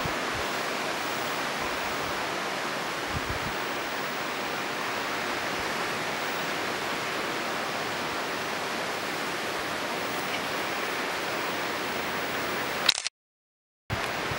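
Steady, even rushing hiss of outdoor background noise, cut off completely for a little under a second near the end.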